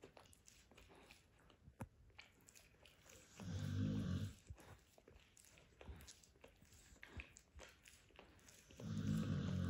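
Cane Corso puppy chewing on a rawhide bone: scattered sharp clicks and crunches of teeth gnawing the hard hide. About three and a half seconds in, and again near the end, the puppy gives a low grunt about a second long.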